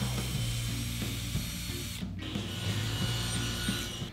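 Cordless drill running as it bores into a hardwood workpiece, with a steady motor whine and a brief break about halfway through.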